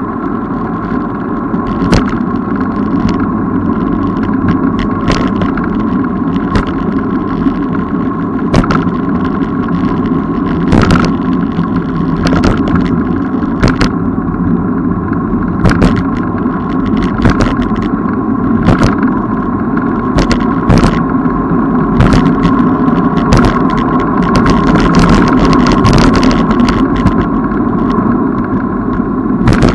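Riding noise from a moving bicycle: a steady rushing rumble with a constant hum, broken every second or so by sharp clicks and rattles.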